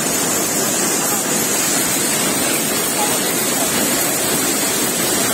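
Steady, loud, unbroken din of weaving looms running together in a weaving shed, a dense hissing clatter with no separate beats.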